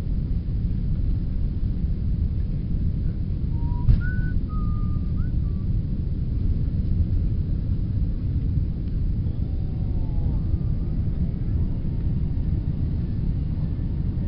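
Jet airliner taking off, heard from inside the cabin: a steady low rumble of engines and runway, with one sharp knock about four seconds in.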